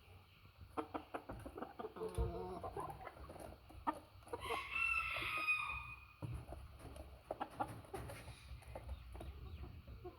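Chickens clucking, with one longer, higher-pitched call about four and a half seconds in, and scattered short clicks.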